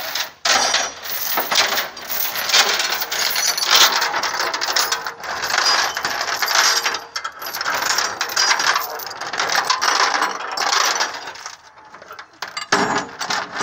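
Metal tow chains and hooks clinking and rattling in a dense, irregular clatter as they are handled.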